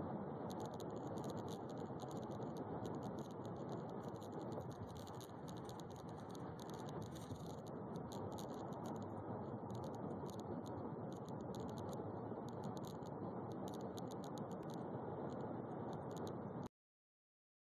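Steady road and engine noise heard inside a car cruising on a freeway, with frequent small rattling clicks over it. The sound cuts off suddenly near the end.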